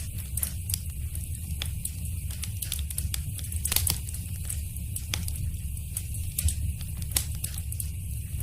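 Wood fire crackling in a fireplace: irregular sharp pops and snaps over a steady low rumble of the flames, with louder pops a few seconds in and near the end.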